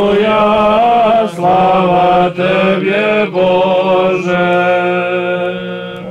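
Men's voices singing Orthodox chant from a memorial service. A melodic line moves above a held low drone note, and the last note is held until it stops near the end.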